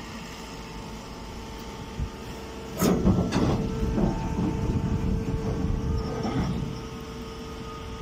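Hydraulic straw baling machine running with a steady hum. About three seconds in, a loud clank sets off a few seconds of rattling, clattering machine noise that then dies back to the hum.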